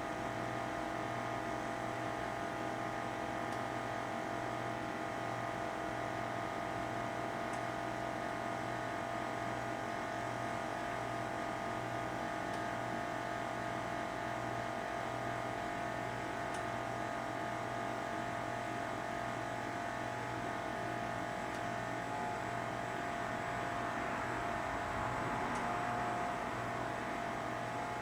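A small electric appliance motor running with a steady, even hum that holds one pitch throughout, turning slightly rougher and louder near the end.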